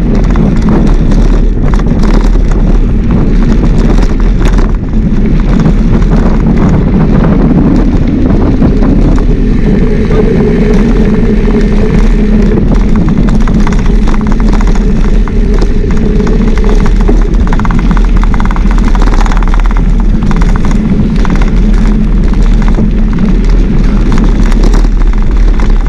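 Wind buffeting the microphone of a camera carried on a mountain bike ridden at speed, with frequent small rattles and clicks from the bike. The noise is loud and steady.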